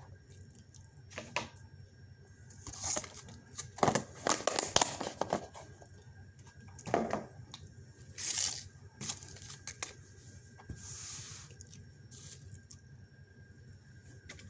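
Intermittent rustling and crinkling, with a few light knocks, as things are handled close to the microphone. The bursts come at irregular intervals, the busiest stretch about four to five seconds in.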